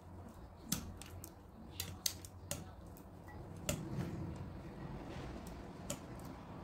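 Metal kitchen tongs clicking and clinking against a stainless steel pot as pieces of boiled pork are picked out of the water, about ten sharp irregular clicks over a low hum.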